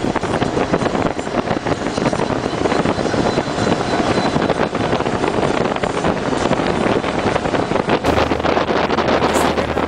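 Motorboat under way across open water: the motor runs steadily while wind buffets the microphone heavily.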